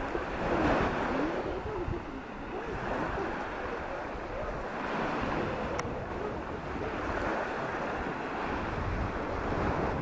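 Small waves washing onto a sandy beach, the surf swelling and fading every few seconds, with wind rumbling on the microphone.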